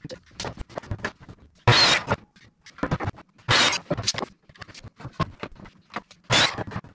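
Handling noises at a workbench: scattered clicks and knocks of a tape measure and wooden boards being set and marked, broken by a few short scraping rushes of about half a second each.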